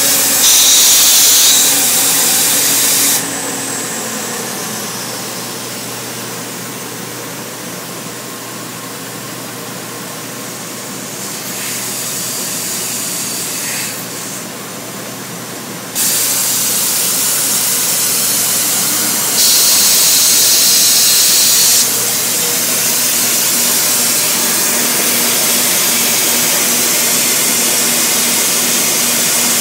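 KOMO CNC router cutting a curved edge in a wood board: a loud steady hissing noise of the spindle and cutter at work. It drops quieter about three seconds in and comes back louder about halfway through.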